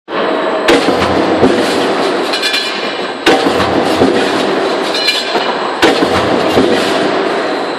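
Stamping press cycling on its die set: three heavy strikes about two and a half seconds apart over a loud, steady machine noise, with short metallic ringing clinks between the strokes.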